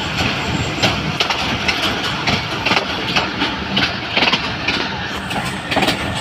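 Passenger train running along the track, heard from a carriage window: a steady rumble with sharp wheel clatter over the rail joints, about two knocks a second.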